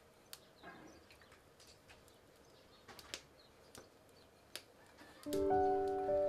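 Small steel idli cups clinking and tapping lightly as they are handled, a few sharp metallic ticks spread apart. About five seconds in, background music starts with several sustained ringing notes and becomes the loudest sound.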